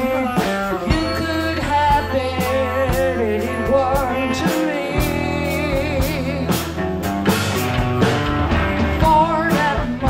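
Live rock band playing an instrumental passage: a flute carries a wavering lead melody over electric guitars and a steady drum beat.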